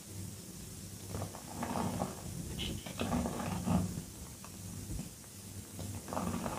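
Soft reformed gym chalk squeezed and crushed by hand, crumbling into powder in about three bursts of soft crunching, with a steady low hum underneath.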